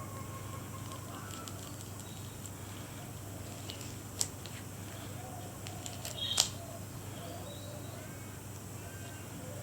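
Birds chirping and warbling over a low steady hum, with two sharp clicks about four and six seconds in, the second the louder.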